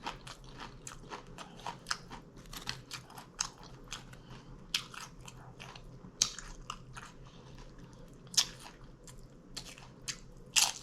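Close-up chewing of a mouthful of taco salad: wet mouth sounds with many short, irregular crunchy clicks, a few louder crunches among them.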